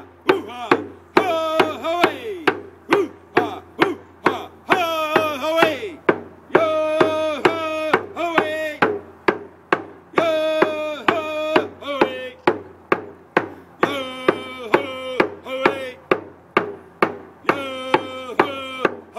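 A man sings a canoe song in long, wavering held notes, accompanying himself on a hide hand drum struck with a beater in a steady beat of about two strokes a second.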